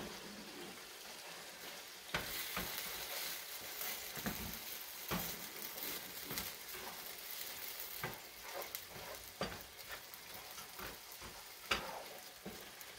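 Vegetables sizzling as they cook down in a frying pan, stirred with a wooden spoon, with scattered clicks and scrapes of the spoon against the pan.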